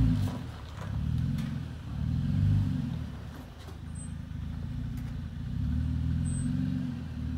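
Third-generation Toyota Tacoma's engine working under throttle as the pickup crawls up a rocky chute. It is a low rumble that swells about two and a half seconds in and again about six seconds in, easing between.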